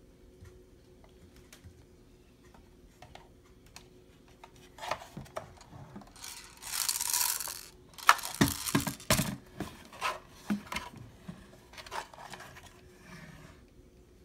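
Handling noise around an airsoft rifle on a wooden table: scattered light clicks, a rustling rub of about a second near the middle, then a run of sharper knocks and clicks. A faint steady hum runs underneath.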